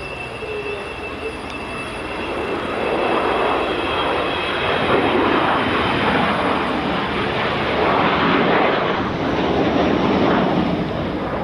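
Jet noise of an Avro Vulcan's four Rolls-Royce Olympus turbojets as the bomber flies past, growing louder about two to three seconds in and staying loud with uneven swells.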